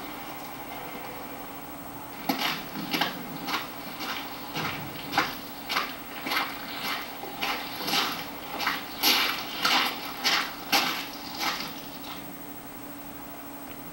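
Hands sloshing and splashing water in a tin bucket, in irregular strokes about two a second that start about two seconds in and stop near the end.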